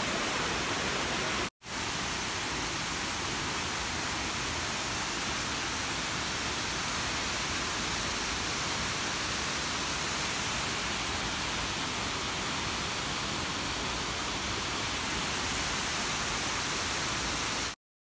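Steady rushing of a large waterfall, Wachirathan Falls, pouring over rock. It breaks off for an instant about a second and a half in, then runs evenly until it cuts off suddenly near the end.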